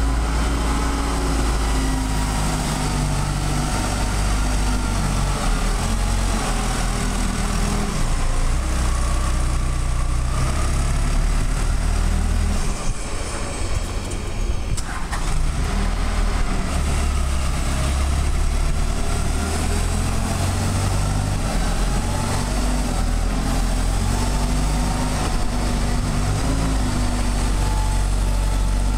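Diesel engine of a large Taylor forklift running as the truck drives and manoeuvres, the engine note rising and falling with the throttle. A softer stretch comes about halfway through, with a brief click.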